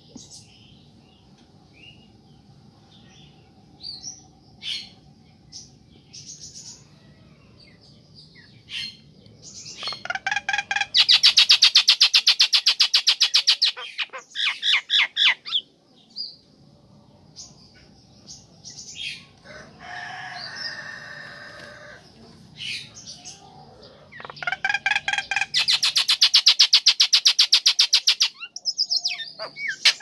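Female jalak nias (myna) calling. Scattered short whistles and chirps are followed by two long, loud chatters of rapidly repeated rattling notes, one about a third of the way in and one near the end, with a harsher call between them.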